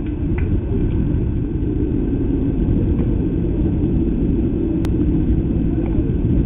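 A steady low rumble, with a faint sharp click about five seconds in.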